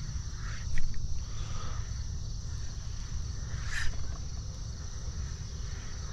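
Quiet waterside ambience at dawn: a steady high insect chorus of crickets over a low rumble. A sharp click comes about a second in, and a short sharp sound near four seconds.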